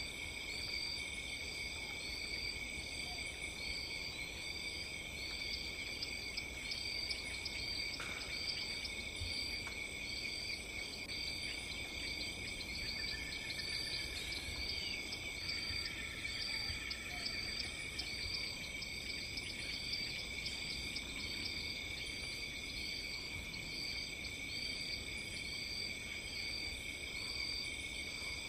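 Night insect chorus: a steady high trilling with a short chirp repeating about twice a second, over low background noise.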